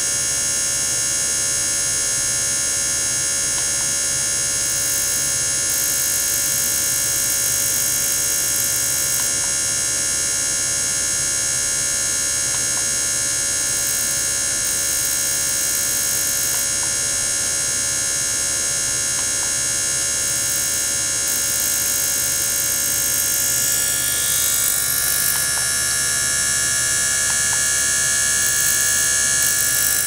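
Steady electric whine and buzz, many high tones together over a low hum, from a small circulation pump and ultrasonic equipment running in a water tank. About 24 seconds in, the tones shift and a higher whine grows stronger.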